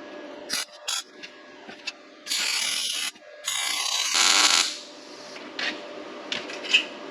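Steel being tack-welded: two short bursts of crackling welding arc, each about a second long, a couple of seconds in, with a few light clicks of metal before and after.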